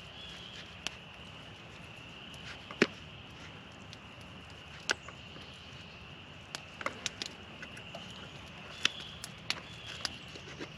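A knife clicking and tapping now and then against a metal mess kit as meat is cut, about a dozen short sharp clicks with the loudest nearly three seconds in. Under them runs a steady high-pitched background drone.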